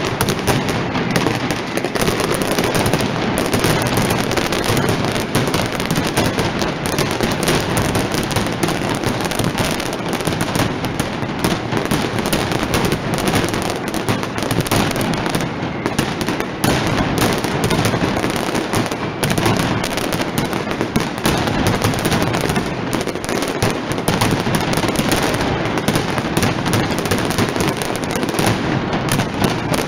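Mascletà firecrackers going off in a dense, unbroken barrage of loud bangs and crackling, with no pauses.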